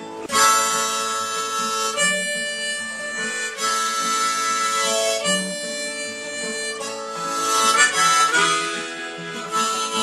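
Instrumental break in a song: a harmonica playing held chords that change every second or two, over a light guitar accompaniment.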